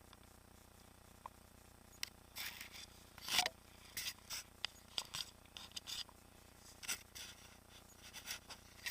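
Irregular scrapes, clicks and rattles of a mountain bike riding over rough trail, a couple of dozen short bursts starting about two seconds in.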